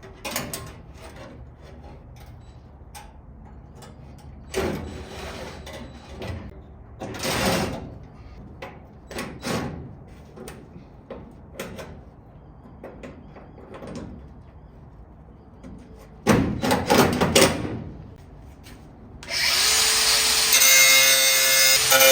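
Power tool working on a car body's steel panel, run in several short bursts. About nineteen seconds in, a power tool starts and runs continuously with a steady whine.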